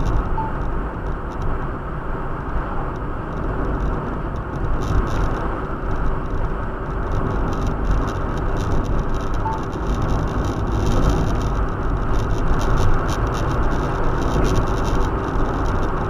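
Steady road and engine noise of a moving car, heard from inside the cabin: a continuous low rumble with no distinct events.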